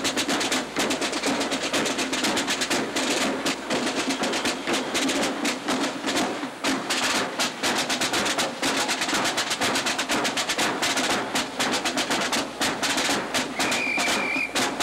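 Rapid, unbroken drumming, many strokes a second like a drum roll, over a steady low hum. A short high tone sounds near the end.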